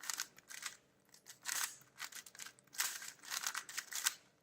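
Plastic 4x4 speedcube, a MoFangGe Thunderclap, being turned fast: quick runs of clicking layer turns with short pauses between them while a parity algorithm is executed.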